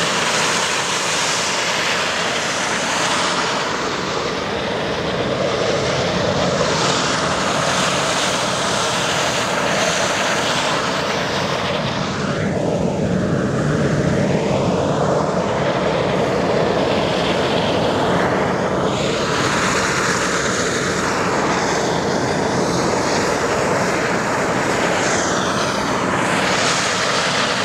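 Steam rushing out of volcanic fumaroles: a loud, steady hissing noise that barely changes.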